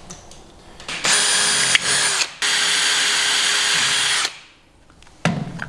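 Cordless drill boring a rivet hole through a copper spatula. It runs steadily for about three seconds with a brief stop about two seconds in, then spins down.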